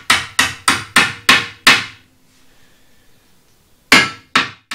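Hammer knocking wooden slats into place on a cast-iron bench frame. Six quick blows, about three a second, then a pause and two more blows near the end.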